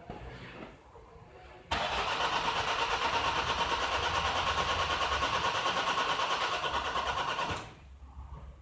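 2011 Nissan X-Trail's 2-litre common-rail diesel being cranked by the starter for about six seconds, with a regular pulse from the compressions, then released without catching. Typical of its hard-start fault: rail pressure reaches about 100 bar during cranking, yet the engine does not fire.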